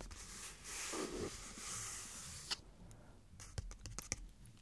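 Fingernails scratching and rubbing across a hardcover book's cover for about two seconds, then a few light taps on the cover.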